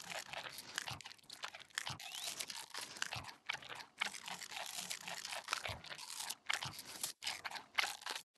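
Brown giant panda chewing bamboo: a dense, continuous run of sharp crunching cracks and snaps, broken by a couple of short pauses near the end.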